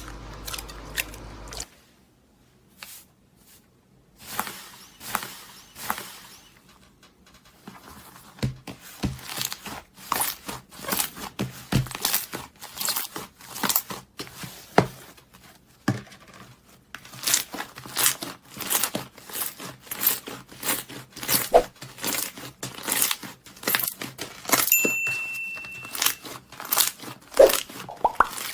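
Slime being pressed and stretched by hand, giving runs of crackling and popping clicks that grow denser from about eight seconds in.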